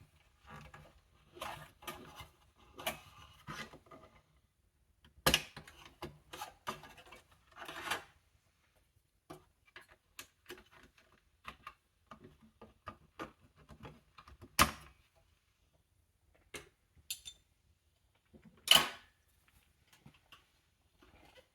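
Clicks, taps and short rustles of a Dell Inspiron 3030 small-form-factor desktop's metal and plastic parts being handled during teardown, with three sharper knocks about five, fifteen and nineteen seconds in.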